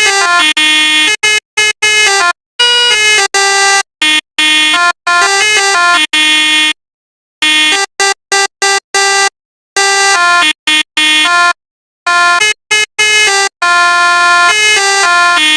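Telolet bus horn sounds: a multi-tone horn playing short melodic runs of notes that step between pitches. The runs are cut by sudden silent gaps, one of almost a second about halfway through.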